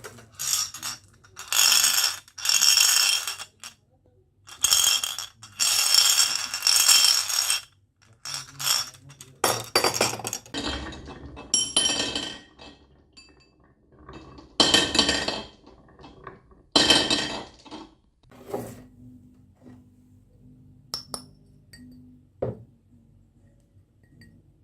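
Marbles rolling and clattering down a wooden HABA slope marble run, in loud bursts of a second or two each, thinning to a few single clicks near the end.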